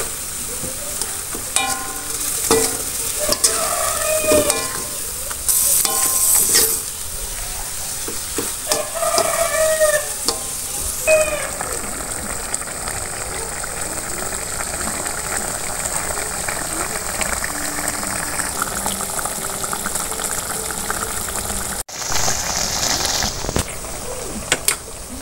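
Eggs in chilli sauce (telur balado) frying in a wok, with a steady sizzle. A metal spoon stirs and scrapes against the wok in the first half, and after that the sauce sizzles and bubbles on its own.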